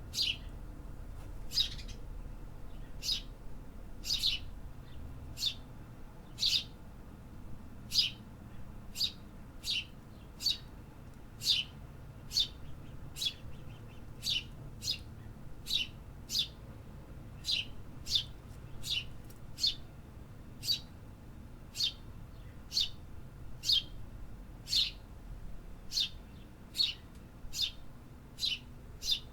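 A small bird chirping over and over: short, sharp, high chirps that drop quickly in pitch, about one or two a second, over a faint low background rumble.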